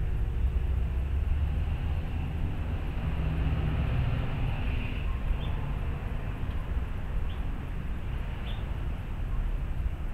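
Steady low background rumble, with a few faint short high chirps in the second half.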